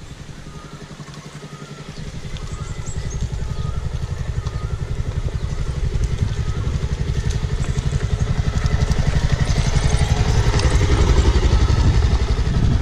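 Motorcycle engine running as the bike rides up a rough gravel track toward and past, growing steadily louder over the first ten seconds.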